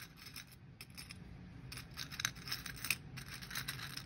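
Metal rings clinking and jingling against each other and a ceramic dish as fingers rummage through a pile of them, in small irregular clinks with a few brighter ones around the middle.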